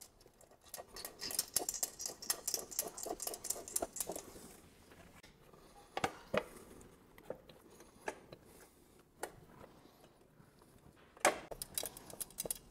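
Chrome motorcycle nacelle parts and small metal hardware being handled and fitted by hand. A busy run of light clicking rattles fills the first few seconds, then single clicks come every second or two.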